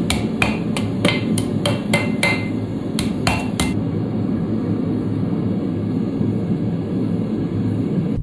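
Blacksmith's hammer forging steel on an anvil: about ten quick ringing blows, which stop a little under four seconds in. A steady low rushing noise runs underneath throughout.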